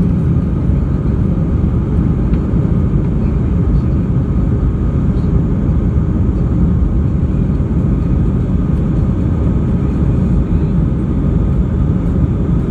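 Steady low rumble of an Airbus A320 airliner's jet engines and airframe, heard inside the cabin as the aircraft moves along the ground.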